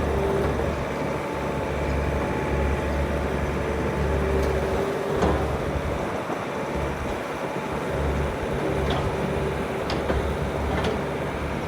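Bobcat S650 skid steer's diesel engine running steadily, with a few short knocks, the loudest about five seconds in.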